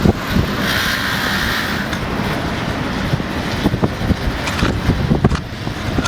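Street traffic: a car passing, with a higher hiss for about a second near the start, and a few short knocks scattered through.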